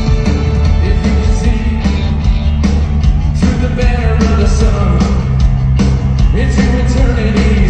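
Loud live rock music from a band playing through a festival PA, heard from the crowd: heavy bass and drums, with singing coming in about halfway through.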